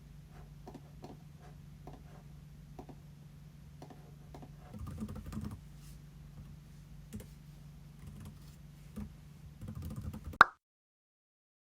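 Typing on a computer keyboard: irregular key clicks over a low steady hum, busier around halfway and near the end. One sharp, louder click about ten and a half seconds in, then the sound cuts off abruptly.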